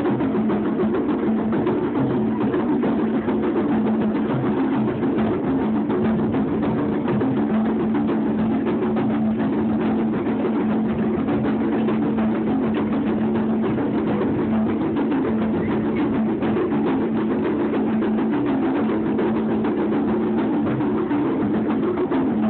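Several hand drums played together in a drum circle, a fast, steady rhythm of many strokes, with a steady low hum beneath it.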